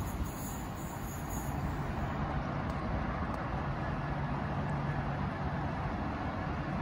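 Electric trains at a station platform: a London Northwestern Railway electric multiple unit running past, then an Avanti West Coast Class 390 Pendolino standing at the platform with a steady low electrical hum.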